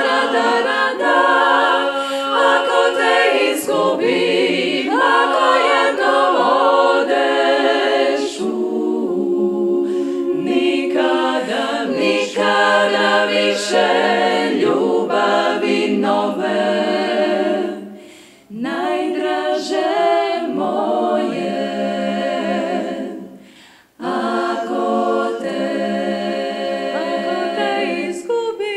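Female klapa, a Dalmatian a cappella vocal ensemble, singing close multi-part harmony without instruments, holding long chords with a slight vibrato. Twice, about two-thirds of the way through, the voices fade and break off briefly between phrases before coming back in together.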